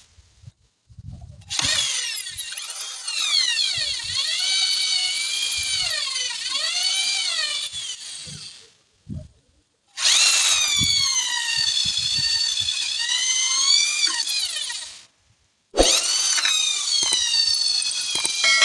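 Electric drill with a size-6 bit drilling out a bolt broken off inside a threaded hole in an engine block, run gently in three bursts with short pauses. Its whine rises and falls in pitch as the trigger is eased.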